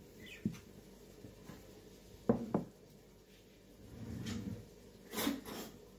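Kitchen handling noises: a light knock early, two sharp knocks on the worktop a little past two seconds in, a soft bump, then a louder rustling clatter a little after five seconds.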